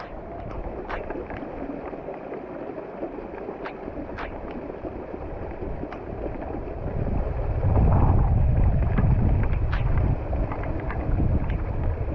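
Wind buffeting the microphone, growing much stronger and deeper about halfway through, with scattered sharp clicks and taps throughout.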